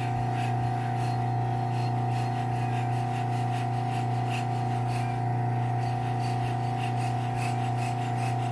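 Belt grinder running steadily with a hum, while steel is rubbed and abraded against it to take chips and rust off a pizza knife blade.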